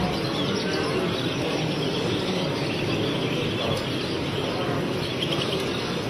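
Chorus of many small caged birds, canaries among them, chirping together over a steady background din of a large hall.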